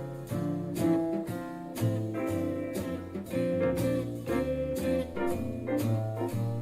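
A music test track played back through a portable Bluetooth speaker: instrumental music with plucked notes over a bass line.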